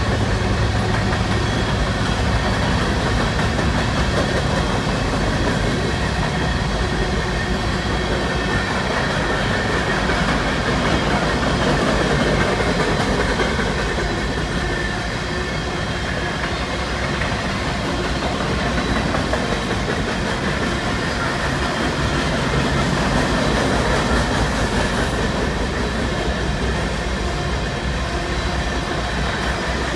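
Freight cars of a long mixed freight train (boxcars, tank cars, covered hoppers) rolling past: a steady rumble of steel wheels on rail.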